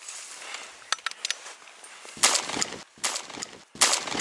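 Footsteps, one loud crunching step about every 0.8 s, starting about two seconds in. Before them there is only a faint steady hiss with a few light clicks.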